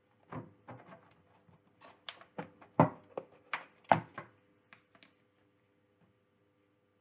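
Handling knocks and clicks from metal tongs and a plastic tub as a scorpion is lifted out and moved: an irregular run of about a dozen sharp knocks, two louder ones near the middle, stopping after about five seconds.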